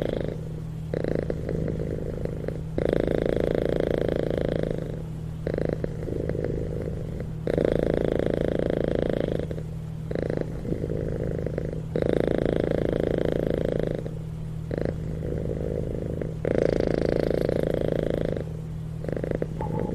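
Kitten purring steadily, the purr swelling and easing with its breathing, with louder stretches about every four to five seconds.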